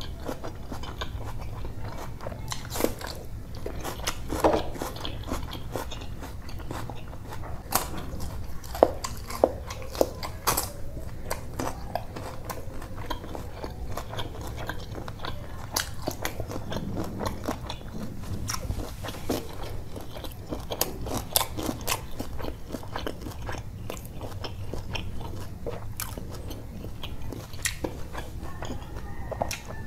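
Close-miked mouth sounds of a person eating rice and curry by hand: steady chewing and biting, with irregular sharp wet smacks and clicks.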